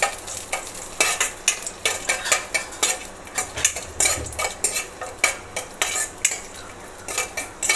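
Steel spoon stirring cashews frying in ghee in a pan: irregular scrapes and clinks of the spoon against the pan, several a second, over the sizzle of the hot ghee.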